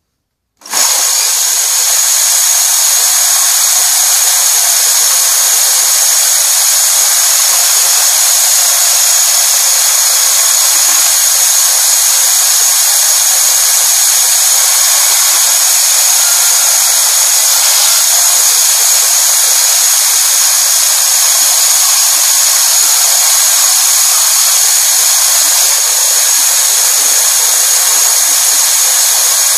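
Homemade wheelless band saw running steadily, a loud even motor-and-blade noise with a high whine; it starts abruptly about a second in.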